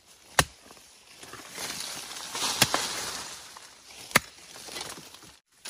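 A hoe chopping into forest soil three times, about every one and a half to two seconds, with loose earth and leaves scraping and rustling in between as the ground is dug up.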